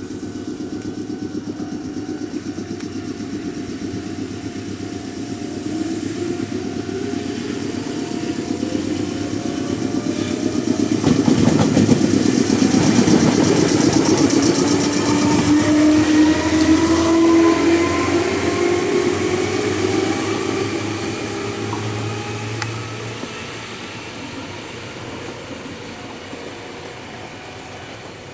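Meitetsu 6800 series electric train pulling out and accelerating past. Its motor whine rises steadily in pitch, is loudest as the cars go by close about halfway through, then fades as the train draws away.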